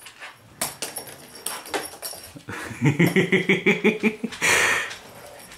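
A dog making a quick run of about a dozen short whines in just over a second, followed by a short breathy huff. A few light knocks of toys on the wooden floor come earlier.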